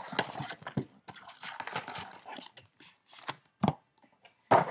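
Cardboard Panini Chronicles basketball blaster box being torn and pried open by hand: irregular rustling and crackling with many small clicks, and a couple of sharper knocks near the end.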